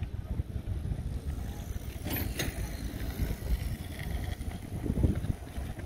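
Outdoor low rumble with wind buffeting the microphone, a brief rustle about two seconds in and a low thump about five seconds in.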